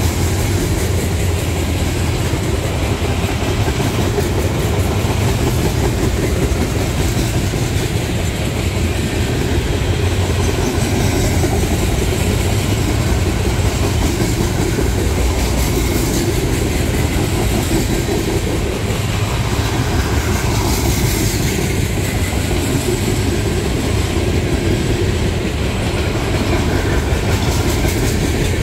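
Freight train of flatcars loaded with waste containers rolling past close by: steel wheels running on the rails, a loud, steady rolling noise without let-up.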